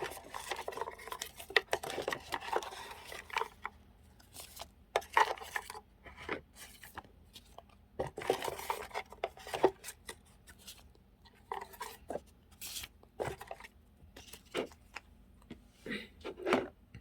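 Hands sorting paper and plastic journaling supplies: stretches of paper and plastic rustling broken up by light taps and clicks.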